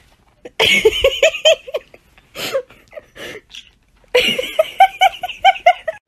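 Laughter in two bouts of quick, rhythmic ha-ha-ha pulses, the first starting about half a second in and the second about four seconds in.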